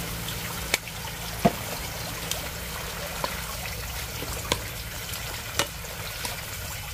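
Talinum greens (rau sâm đất) stir-frying in a skillet over a gas burner, sizzling and bubbling steadily in the plentiful juice they give off, with several sharp clicks of wooden chopsticks against the pan.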